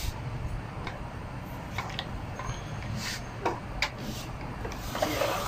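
Scattered light clicks and rubbing as the parts of a sliding angle grinder stand are handled, over a low steady hum.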